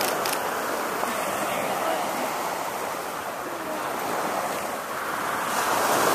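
Steady wash of surf breaking on a sandy beach, mixed with wind on the microphone.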